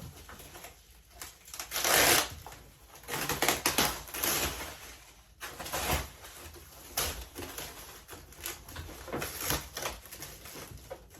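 Packing wrap being crinkled and torn off a boxed synthesizer, in irregular rustling, crackling bursts, the loudest about two seconds in.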